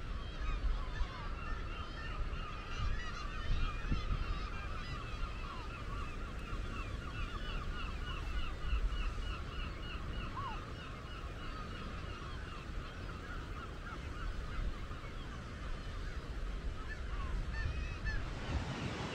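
A seabird colony on the sea cliffs calling continuously, many short calls overlapping in quick repeated series, thinning near the end. Underneath is a low rumble of wind on the microphone.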